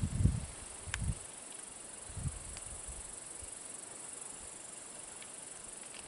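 Field insects chirring in a steady high-pitched hiss. A few low muffled thumps on the microphone come in the first couple of seconds, with a sharp click about a second in.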